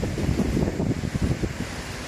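Strong wind buffeting the microphone in gusts, a low irregular rumble that eases into a steadier, quieter rush near the end.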